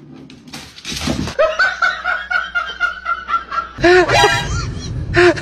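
A person laughing in a quick, even run of short 'ha' sounds, then a louder burst of laughter near the end.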